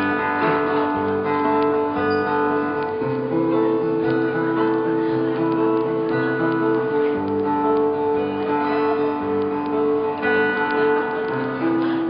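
Acoustic guitar playing a song's instrumental intro, sounding clear notes in a steady, repeating pattern.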